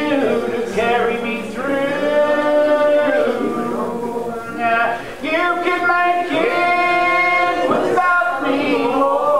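Unaccompanied hymn singing with no instruments: slow, long drawn-out notes with short breaks between them.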